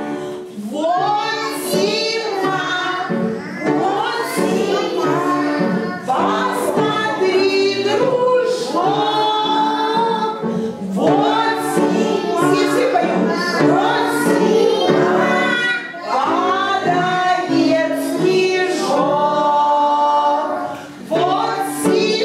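Music: a song with a group of voices singing the melody over a steady instrumental backing.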